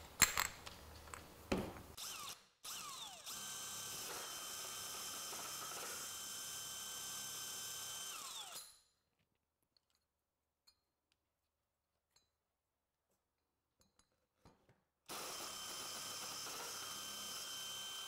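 Cordless drill motor running steadily with a whine for about five seconds, speeding up as it starts and winding down as it stops. It runs again for about three seconds near the end, drilling a quarter-inch hole through plywood. A few clicks and knocks come in the first couple of seconds.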